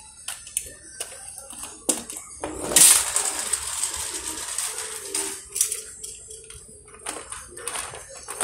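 Scattered clicks and a rattling rush of plastic toy cars' wheels rolling over a board and rough concrete. The rush is loudest about three seconds in and starts again near the end.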